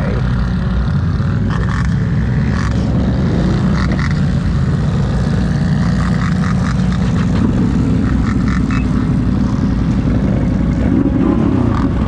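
Several ATV engines running in a steady low drone, with one engine's revs rising and falling briefly near the end.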